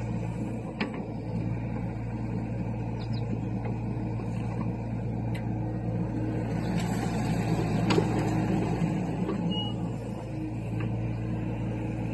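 John Deere compact excavator's diesel engine running steadily under hydraulic load as the bucket drags and levels loose dirt. A few sharp knocks, the loudest about eight seconds in, where the engine note also swells briefly.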